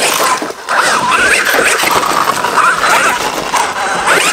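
Losi Super Rock Rey 1/6-scale RC truck running on an 8S battery: its brushless motor whines, the pitch rising and falling as the throttle is worked, over the noise of tyres on dirt.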